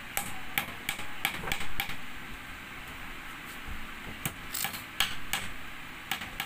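Hammer tapping nails into a wooden strip, one nail after another: a quick run of light taps, a pause of about two seconds in the middle, then another run of taps.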